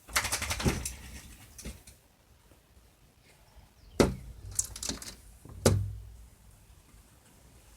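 A bird flapping and knocking against the house: a flurry of rapid taps at the start, a lighter knock, then two sharp knocks about a second and a half apart.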